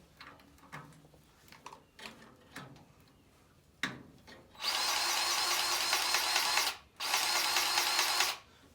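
DeWalt 20V Max cordless grease gun: a few light clicks as the coupler goes onto a grease fitting. Then its motor runs twice, for about two seconds and then about a second and a half with a short break between, pumping grease into a fitting that had gone dry.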